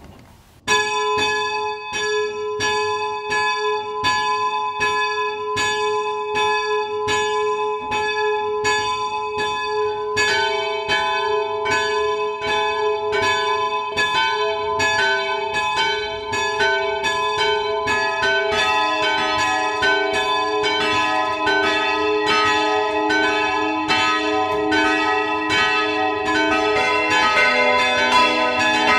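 Electrically rung church bells ringing to call to the service. A single bell starts about a second in, and further bells join one after another, about ten, eighteen and twenty-seven seconds in, the later ones deeper, building to a full peal.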